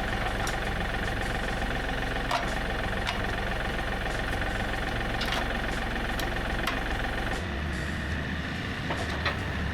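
Tractor engine running steadily, its low note changing about seven and a half seconds in, with a few faint clicks over it.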